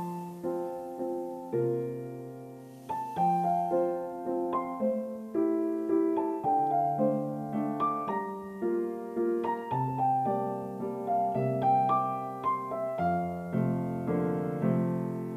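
Slow background piano music: single notes struck one after another over held chords, each note fading after it is played.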